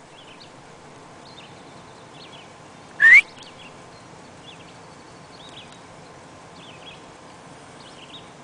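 Faint bird chirps from the surrounding woods over a steady outdoor background hiss, with one short, loud rising squeal about three seconds in.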